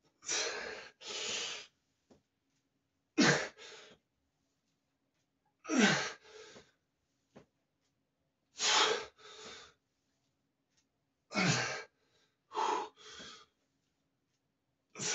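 A man breathing hard through a set of heavy barbell back squats: a sharp, forceful exhale followed by a softer breath on each rep, repeating about every two to three seconds. A few of the exhales carry a short falling grunt.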